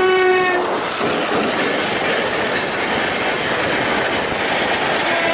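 A train horn blares one held note and cuts off about half a second in, giving way to the loud, steady rushing noise of a Shatabdi Express's coaches passing close by at speed on the next track.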